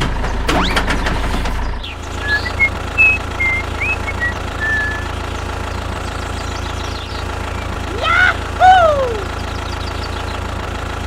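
Engine running steadily at idle, a low even hum. Short high chirps come over it in the first half, and two loud sliding cries, rising then falling, come a little past the middle.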